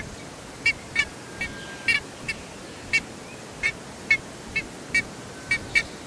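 Scarlet ibis calling: a quick series of short, sharp calls, about two a second and unevenly spaced, over a faint background hiss.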